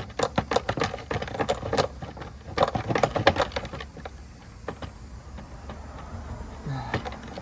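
A stock air intake part in a car's engine bay being wiggled and pulled upward by hand, giving rapid clicking and rattling in two bursts over the first four seconds, then only a few scattered ticks.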